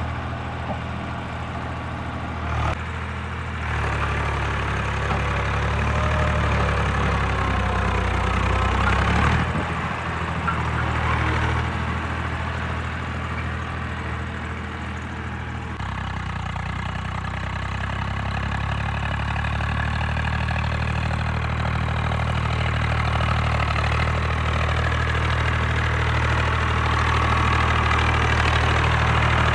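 Swaraj 744 tractor's three-cylinder diesel engine running steadily under load while dragging a rear leveling blade through loose soil. The engine note and level jump abruptly a few times, about 3, 9 and 16 seconds in.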